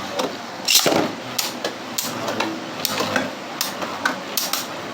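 Two plastic-and-metal Beyblade Burst spinning tops launched into a plastic stadium: a loud clatter about a second in, then repeated sharp, irregular clacks as the spinning tops collide and knock against each other.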